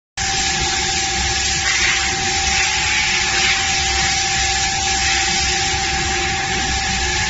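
Twin-spindle CNC engraving router cutting acrylic sheet: a steady spindle whine over a constant hiss, unchanging throughout.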